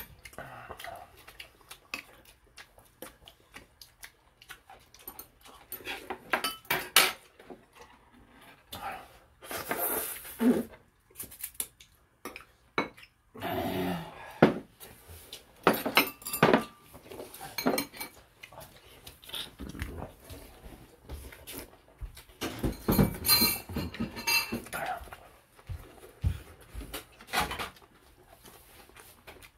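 Spoons and chopsticks clinking against bowls and dishes, with dishes knocked down on a table and the sounds of people eating.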